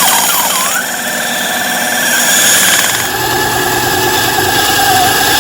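A power tool running loud and steady as it cuts through turned wooden egg blanks to separate them, with a high squeal at the start and a change in pitch about three seconds in.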